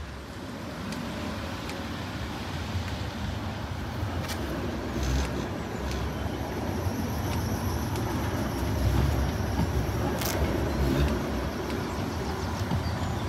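Sheffield Supertram tram running, a low rumble that slowly grows louder, with a few sharp clicks.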